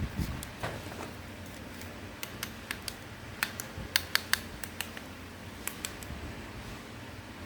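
Irregular small sharp clicks and taps, like hard plastic parts being handled, over a low steady hum. A few louder clicks come in a cluster around the middle.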